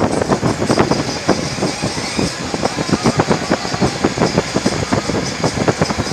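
Road and wind noise from a moving vehicle, with frequent irregular buffets and knocks on the phone's microphone.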